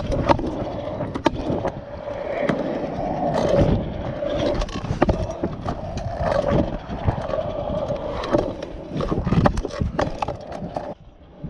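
Stunt scooter wheels rolling over concrete with a steady hum, broken by many sharp clacks and scrapes of the scooter striking the ground. It goes briefly quieter near the end.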